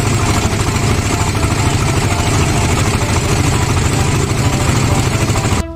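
Fishing trawler's diesel engine running steadily, a deep rapid throb with a wash of noise over it. It cuts off suddenly near the end.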